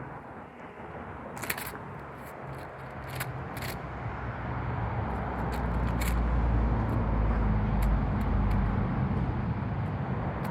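A motor vehicle passing: a low engine rumble that swells to its loudest a little past the middle and eases off near the end, with a few sharp taps in the first half.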